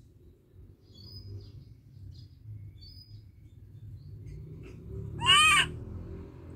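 A macaque gives one short, high call about five seconds in, rising then falling in pitch over half a second. Faint chirps of small birds and a low rumble sit behind it.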